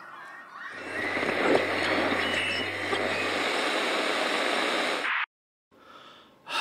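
A steady rushing noise with a low hum beneath it for the first part, cutting off suddenly about five seconds in.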